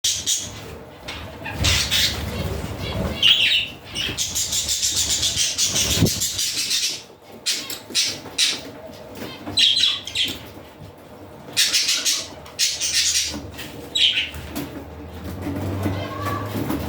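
Budgerigars chirping and chattering, with repeated short high squawks and a fast buzzing warble between about four and six seconds in. A low steady hum comes in near the end.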